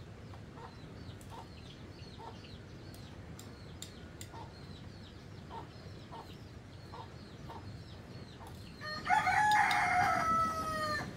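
A rooster crows once near the end, a single long call of about two seconds that drops in pitch as it ends. Before it, faint high chirps repeat about twice a second.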